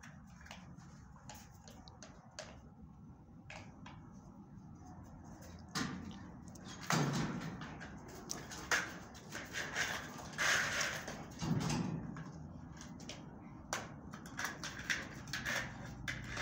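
Two dogs playing on gravel: scattered knocks, scrapes and scuffles of paws, the ball and the fence, with louder rustling bursts in the second half.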